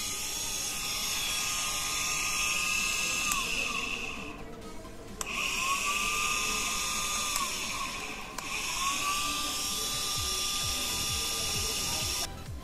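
Homemade drill built from a 775 DC motor with a keyed chuck, running unloaded in three spells. Each time its whine rises as it spins up, holds steady, then sinks as it spins down after being switched off.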